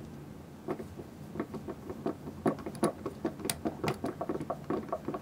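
Screwdriver driving a small screw back into a Technics SL-1900 turntable's tonearm lift mechanism: a run of small, irregular metal clicks and ticks, several a second, starting about a second in.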